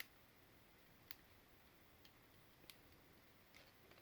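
Near silence broken by about six faint, small clicks from handling the PS4 controller's plastic parts while its ribbon cable is seated into the board connector.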